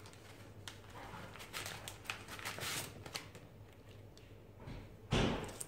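Faint rustling and light clicks of food and utensils being handled on a kitchen counter, with one short, louder bump about five seconds in.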